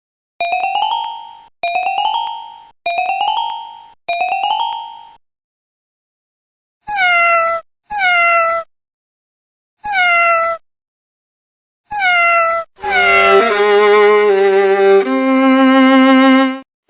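A string of short cat meows, evenly spaced, followed about thirteen seconds in by a sustained bowed-string melody, like a violin, that plays on.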